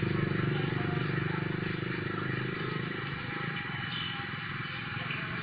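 A low, steady engine drone that fades away over the first three seconds, leaving a quieter background with faint high chirps.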